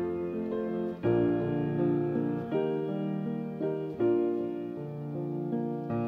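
Slow background piano music, with sustained chords and new notes struck about a second in and again about four seconds in.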